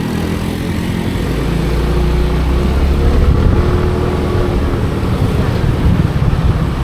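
Vehicle engine running while under way, a low rumble with a steady engine hum that grows louder about two seconds in.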